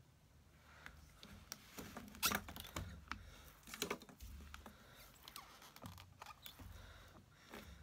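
Scattered soft taps and sharp clicks of paper-crafting tools being handled: a plastic-cased ink pad dabbed onto a clear stamp, and small magnets set down on a hinged stamping platform.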